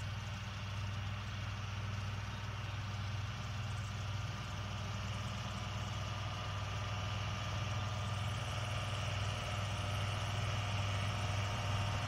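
Kubota L3750 compact diesel tractor running steadily while mowing hay with a sickle bar mower, the engine sound slowly growing louder as it approaches.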